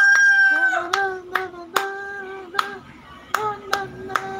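Puppy howling in one long, steady held note that falls in pitch near the end, while a person claps hands several times at an uneven beat.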